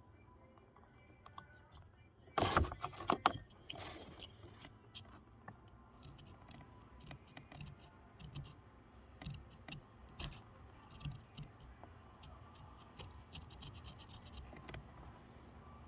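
Hand carving tool scraping and shaving wood: a louder run of scraping strokes a couple of seconds in, then scattered light scrapes and clicks.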